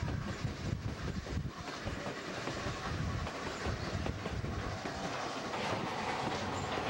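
Railroad passenger car rolling along, its wheels clattering over the rail joints over a steady low rumble.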